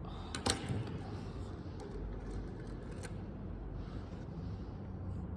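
Low steady background hum with a sharp click about half a second in and a fainter click about three seconds in.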